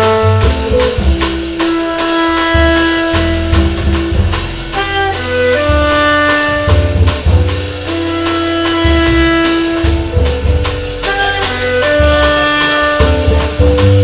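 Live jazz quintet: alto saxophone and clarinet play long held notes together over upright bass, electric guitar and a steady drum-kit beat.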